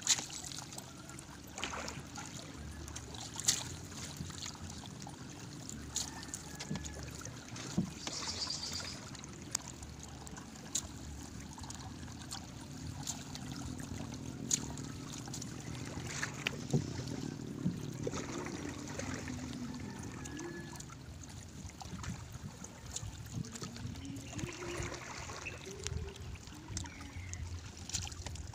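Gill net being hauled by hand into a small wooden outrigger boat: water dripping and trickling off the mesh, with scattered light knocks and clicks against the hull.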